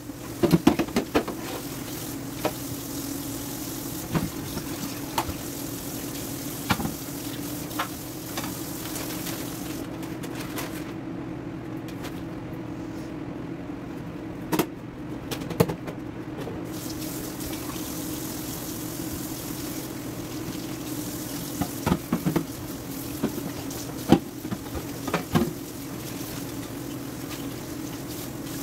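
Hand-washing dishes: tap water running into a stainless steel sink, with scattered knocks and clatter of a cutting board and pans against the sink. The water stops for a few seconds in the middle, then runs again.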